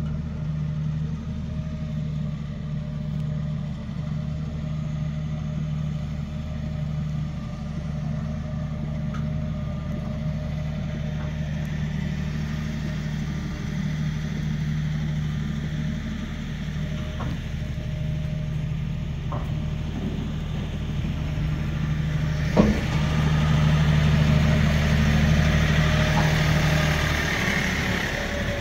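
Tractor engine running steadily. A single sharp knock comes about two-thirds of the way through, after which the running gets louder, with more hiss, for a few seconds.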